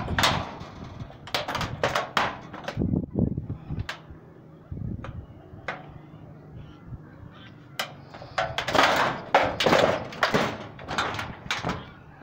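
Footsteps on loose corrugated metal sheeting over a railway bridge's wooden sleepers: irregular clanks and thuds, with a busier run of rattling knocks about two-thirds of the way in.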